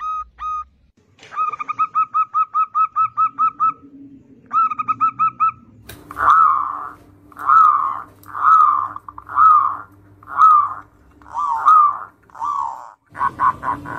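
Caged zebra doves cooing: first a fast string of short, clear coos, about six a second, in two runs; then, after a cut, a slower series of longer, rougher coos about one a second over a faint steady hum.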